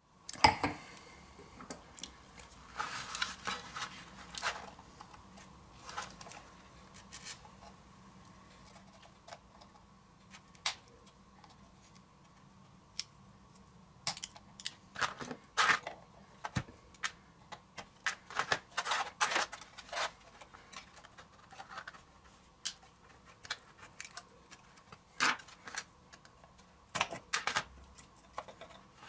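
Irregular small clicks, taps and scrapes of hands working the wires and metal fittings on the wooden base board of an antique Violet Ray while its condenser is replaced, with busier bunches of clicks a few seconds in, in the middle and near the end.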